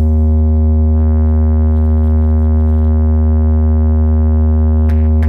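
A single loud, sustained sub-bass tone played through a DJ sound system as a bass test, held at one steady pitch with a ladder of overtones above it. Two short clicks come near the end.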